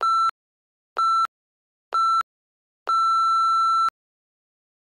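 Electronic interval-timer countdown beeps: three short beeps a second apart, then one long beep of about a second. The long beep marks the end of one timed interval and the start of the next.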